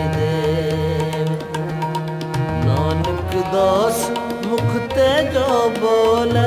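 Sikh devotional kirtan: a voice singing a hymn to tabla accompaniment over steady held notes, with the sung line climbing and falling in the second half.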